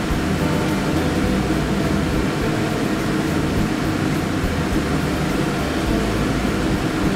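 Cha kwai (fried dough sticks) frying in hot oil in a pan: a steady sizzle, with a low steady hum underneath.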